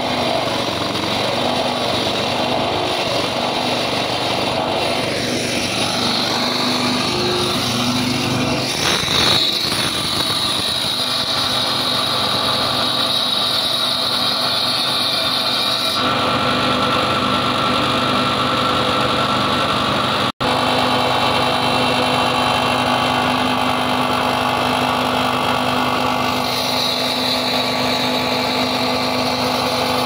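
Engines running steadily on a concrete paving site. After an abrupt change about halfway through, a walk-behind petrol concrete saw runs as it cuts a joint in the concrete pavement slab, and a high whine joins near the end.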